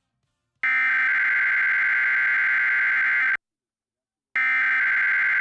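Emergency Alert System SAME header data bursts opening a Required Weekly Test: a harsh, steady digital buzz sounds for nearly three seconds, stops for a second, then starts again identically.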